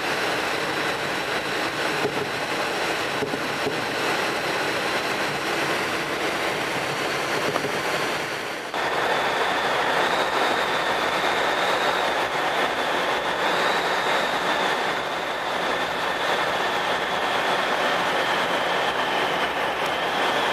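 Steady rushing airflow noise of a glider in flight, heard from a camera on the aircraft. About a third of the way in the sound switches abruptly to a brighter hiss with a faint, steady high whistle.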